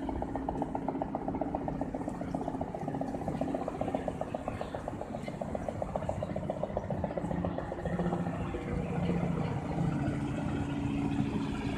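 An engine running steadily with a fast, even pulsing rattle that fades out about two-thirds of the way through, leaving a steady low hum.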